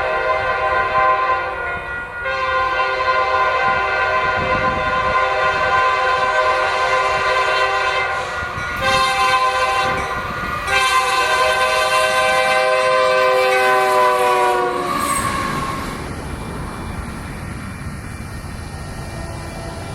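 Multi-chime locomotive air horn with a fouled, off-sounding chime, blowing the grade-crossing signal: two long blasts, a short one, then a final long one whose pitch drops as the locomotive passes. The steady rumble of the passing train follows.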